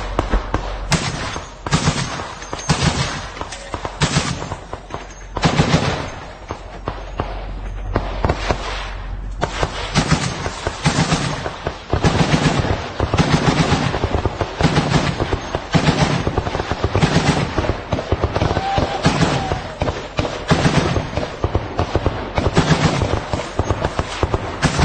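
Machine gun firing many short bursts of rapid shots, coming closer together and more evenly in the second half.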